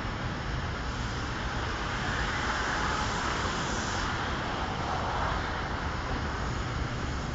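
Metro train running along a depot track at a distance: a steady rumble and hiss that swells in the middle and fades again.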